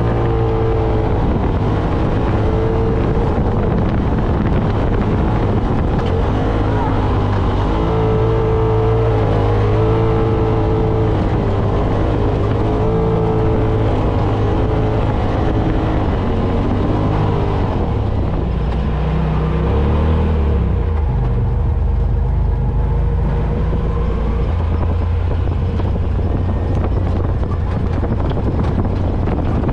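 Polaris RZR PRO XP side-by-side's engine running under load on a dirt hill climb, its pitch rising and falling again and again as the throttle is worked.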